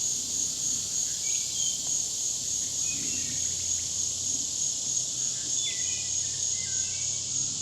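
A steady, high-pitched chorus of singing insects, one continuous shrill with a faint rapid pulse. Several faint short whistled chirps sound through it.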